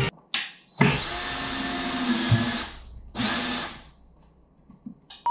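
Cordless drill driving up into the garage ceiling in three bursts: a short blip, a steady run of about two seconds, then a shorter run.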